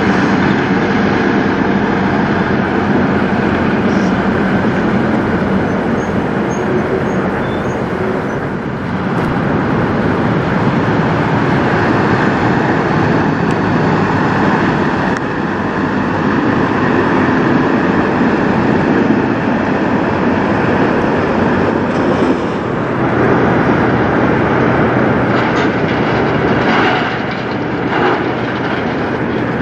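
Tractor-trailer trucks' diesel engines running as the rigs drive slowly past one after another, a steady loud rumble with tyre noise. It dips briefly a few times where one truck gives way to the next.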